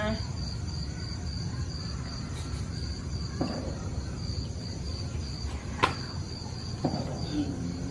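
Crickets chirping in a steady, evenly pulsing high trill, with a few sharp clicks partway through.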